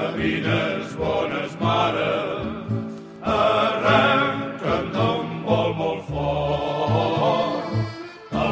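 Recorded Catalan tavern song: voices singing a fishermen's song over instrumental accompaniment with a steady, rhythmic bass. The sound is cut off above the middle range, like a radio-quality recording.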